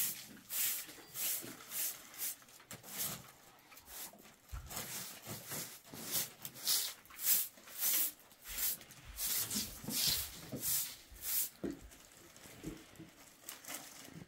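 Dry twigs and brushwood being handled and stuffed into a clay hearth: a run of irregular brittle crackles and rustles, a fraction of a second apart.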